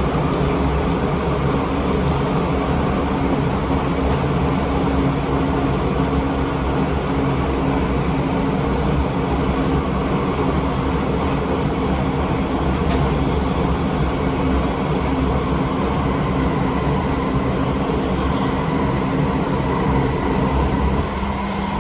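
Seibu 20000 series electric train running at a steady speed: a continuous rumble of wheels on rail with a steady hum from its Hitachi IGBT-VVVF traction drive, holding one pitch throughout.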